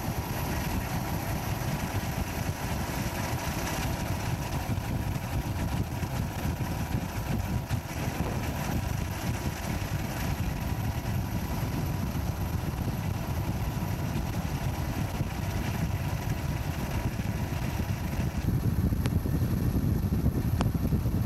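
Steady low rumble of a boat's engine running, with wind noise on the microphone; it grows a little louder near the end.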